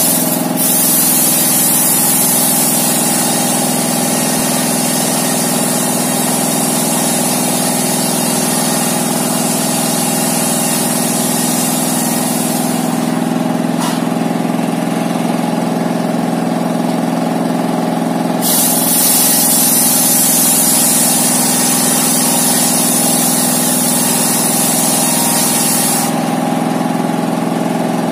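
A stationary diesel engine runs steadily, driving a homemade table circular saw as its blade rips through a large timber. The cutting adds a loud high hiss through roughly the first half, and again for a long stretch later on, over the engine's constant drone.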